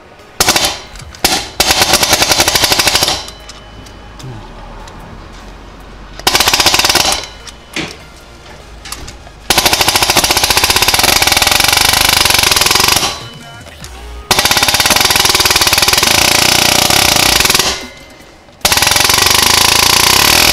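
Air-powered palm nailer hammering a 3/16-inch pin punch to drive out the shifter pin on a Subaru WRX, in bursts of very rapid blows, the longer bursts lasting three to four seconds with short pauses between.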